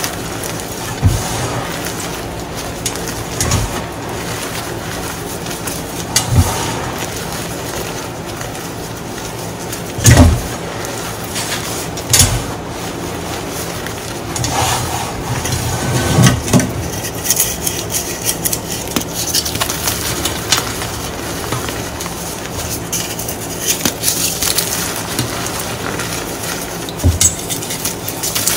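Hands crumbling and crushing blocks of reformed gym chalk into loose powder: a continuous crisp crunching and crackling, with a few dull thumps as chunks are pressed down, the loudest about ten seconds in.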